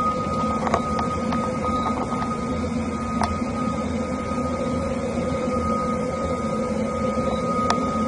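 Steady droning hum with a thin, steady high tone above it, the unexplained hum that is put forward as a strange sound in the night sky. A few faint clicks sound through it, about a second in, around two and three seconds in, and near the end.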